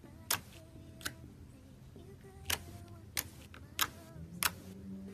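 Fingers poking and pressing into a soft, glossy slime, making about six sharp, irregularly spaced pops and clicks as the fingertips sink in and pull out.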